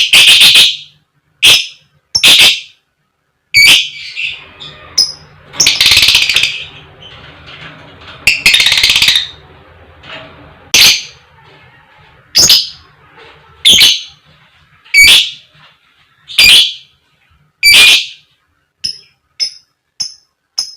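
Lovebird giving loud, sharp 'koek koek' calls about every second and a half, with longer chattering runs in between and short fainter chips near the end.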